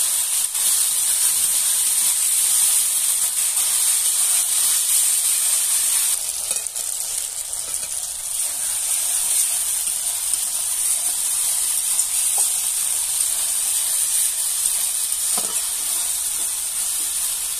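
Onion-tomato masala sizzling steadily in hot oil in a kadai, stirred now and then with a spatula. The sizzle drops slightly about six seconds in.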